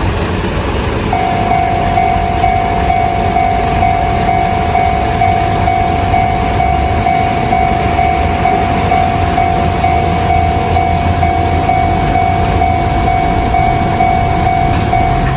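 Japanese railway level-crossing warning bell, starting about a second in and ringing at a steady, even beat, which signals that a train is approaching. A low rumble runs underneath.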